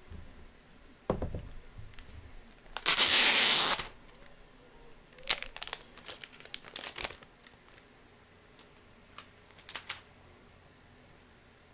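Plastic packaging being torn: one loud rip lasting about a second, followed by a scatter of sharp clicks and crinkles as it is handled.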